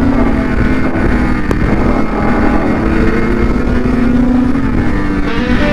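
Snowmobile engine running steadily while riding along a trail, heard from the rider's own sled, over a low rumble of wind noise on the microphone. The engine note dips slightly about two seconds in and rises a little near the end.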